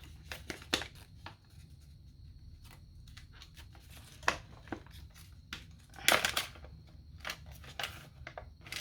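Packaging rustling with scattered light clicks and knocks as a diamond painting toolkit and its small accessories are unpacked by hand, with a louder flurry of handling about six seconds in.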